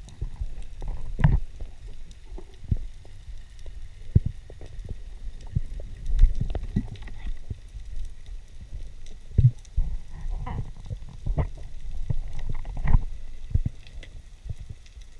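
Underwater sound picked up by a submerged camera: a dull rumble of moving water with irregular low knocks and clicks, the strongest about a second in, around six seconds in and near the end.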